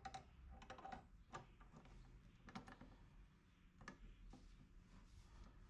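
Faint, irregular light clicks and taps of metal seat slider rails and brackets being handled and shifted, over near silence.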